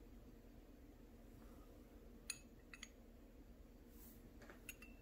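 Near silence broken by a few faint, sharp clinks, a thin metal strip touching a small glass beaker: a group of them a little over two seconds in and another near the end.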